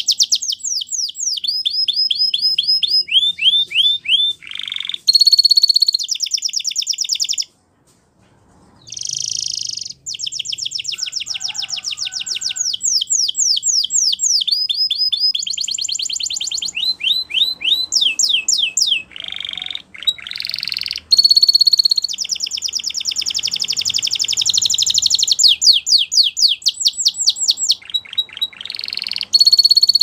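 Timbrado canary singing long trills and rolls of fast repeated notes, some phrases made of quick rising or falling sweeps. The song breaks off briefly about eight seconds in, then goes on.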